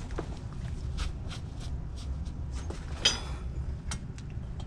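Scattered light clicks and knocks of suspension parts and tools being handled while a shock absorber and coil spring are fitted, with one sharper clack about three seconds in, over a low steady hum.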